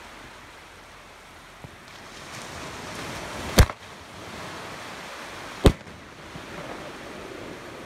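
Consumer aerial fireworks going off: two sharp bangs about two seconds apart, over a steady background hiss.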